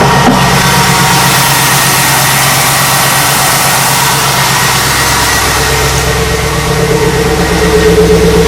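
A 1998 Trans Am's LS1 V8 idling steadily. About six to seven seconds in, a steady mid-pitched hum grows louder over the idle.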